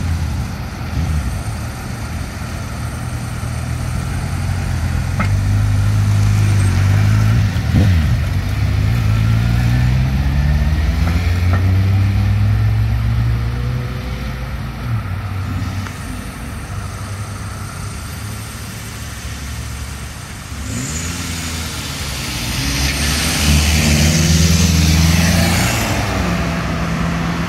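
Cars passing through an intersection, their engines accelerating with rising pitch. Near the end a car passes close with tyre hiss.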